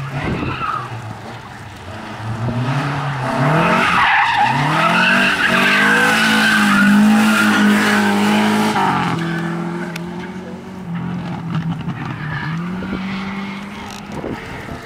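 Rally car's engine revving hard as it accelerates out of a tight bend, held at high revs with tyres squealing, then dropping in pitch at an upshift about nine seconds in and running on more steadily as it fades away.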